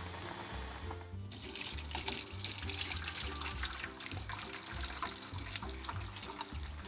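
A pot of pasta boiling with a soft hiss, then, about a second in, the pasta and its cooking water are poured into a plastic colander: a sudden rush of splashing, draining water with many small spatters.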